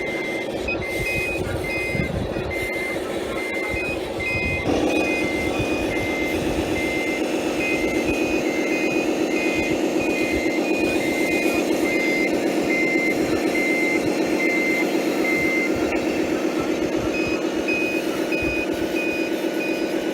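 Electronic reversing beepers of radio-controlled scale trucks: two beepers at slightly different pitches, each beeping just under twice a second. The lower one stops about three-quarters of the way through and the higher one carries on. Under them a steady motor drone gets louder about five seconds in.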